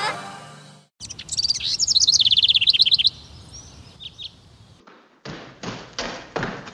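Birdsong effect: a fast, high chirping trill for about two seconds, then two short chirps, after a fading chime at the start. Near the end comes a run of light taps.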